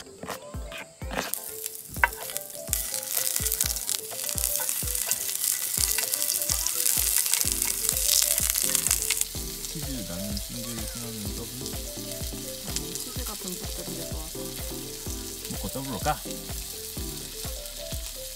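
Food sizzling loudly in hot oil on a griddle, over background music with a steady beat; the sizzle cuts off about nine seconds in, leaving the music.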